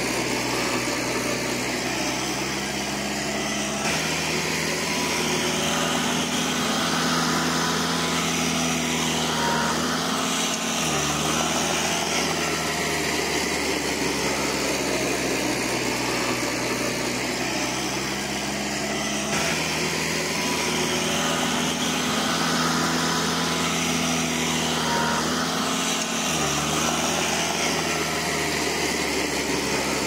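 Diesel engine of a heavy earthmoving machine running steadily. Its pitch sags briefly and recovers twice, about ten seconds in and again some fifteen seconds later.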